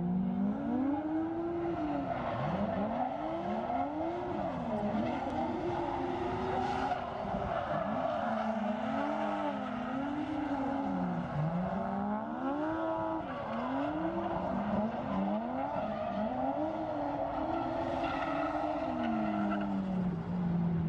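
Two drift cars drifting in tandem: their engines rev up and down again and again, two notes rising and falling across each other, over a hiss of spinning tyres with some tyre squeal. Near the end one engine winds down in a long falling note.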